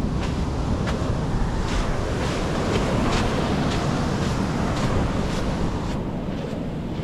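Waves washing onto the beach under heavy wind buffeting on the microphone, with the walker's footsteps on the beach landing about twice a second.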